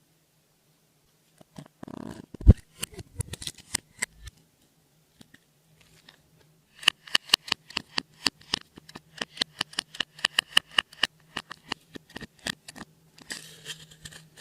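Clear slime being squeezed and stretched by hand, making runs of sticky, sharp clicks and pops, several a second, with a soft thump about two and a half seconds in and a brief crackly squish near the end.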